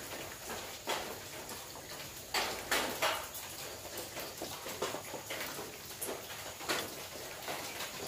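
Rain falling on a corrugated zinc roof: a steady patter with irregular louder drops knocking on the metal, a few heavier ones about two to three seconds in.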